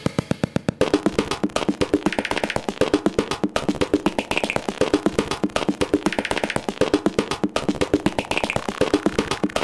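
Background music with a quick, steady beat and a short figure that repeats about every two seconds.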